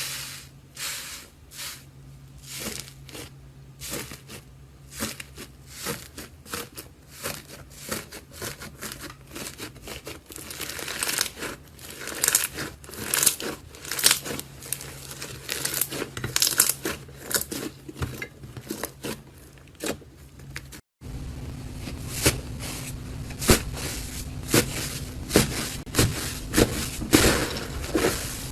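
Hands squeezing and pressing slime close up, making a stream of irregular crackles, pops and crunches. About two-thirds of the way through there is a cut, after which the crackling is louder.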